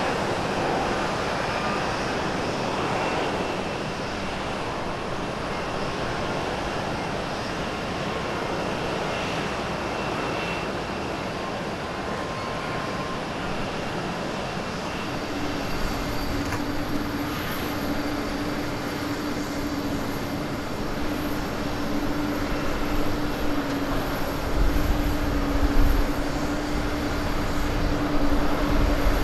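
Jet engines of an ANA Airbus A321neo climbing out after takeoff, a steady roar that slowly eases. About halfway through, a steady hum joins in, and near the end a low rumble builds as an Air Do Boeing 767 comes in over the runway to land.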